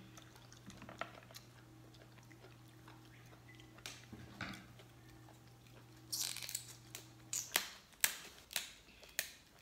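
Cooked lobster shell cracking and snapping as it is pulled apart by hand, with eating sounds; a quick run of sharp cracks near the end.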